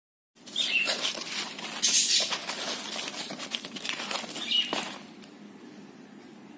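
Old painted canvas being torn apart by hand: a ragged ripping full of crackles that starts suddenly about half a second in, is loudest around two seconds in, and drops to faint rustling after about five seconds.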